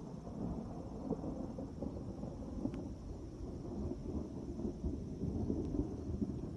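Low, rolling rumble of distant thunder from a thunderstorm, swelling and fading without a sharp crack.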